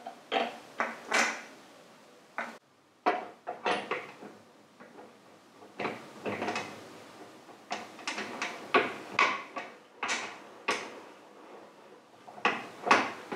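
Metal parts and hand tools being handled and set down while a motorcycle front end is assembled: a string of irregular knocks and clinks, some in quick clusters, the loudest pair near the end.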